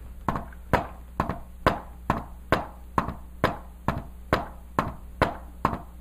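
Hand tapping on a whiteboard in an even run of sharp knocks, a little over two a second, beating out the S4 heart-sound rhythm (S4, S1, S2) as a stand-in for what is heard through a stethoscope.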